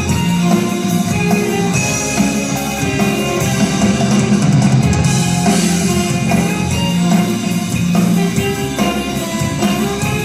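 Rock-style music with guitar and a drum kit playing a steady beat.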